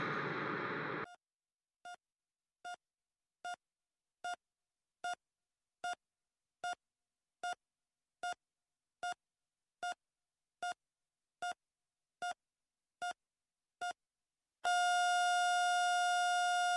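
Heart-monitor sound effect: short electronic beeps at a steady pulse-like rate, about five every four seconds, the first few growing louder, then a few seconds from the end an unbroken flatline tone at the same pitch. Music stops about a second in, before the beeps begin.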